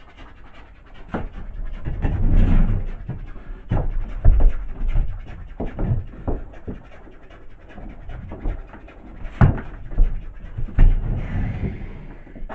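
Heavy panting breaths, with scattered sharp knocks and rustling throughout.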